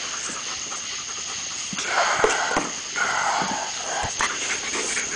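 German Shepherds panting and sniffing close to the microphone during rough play, in breathy bursts, with scattered bumps and rustles of handling.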